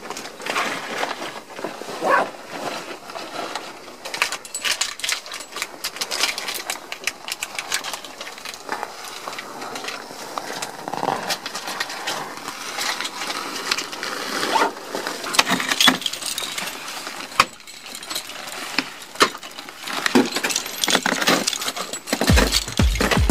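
Ice tool picks and crampon points striking steep waterfall ice in irregular sharp knocks, with metal climbing hardware clinking on the harness. Near the end a low steady beat of music comes in.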